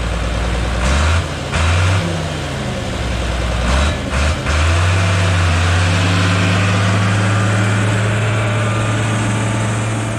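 Crawler bulldozer's diesel engine running, its revs dropping and rising a few times, then held steady at higher revs from about halfway.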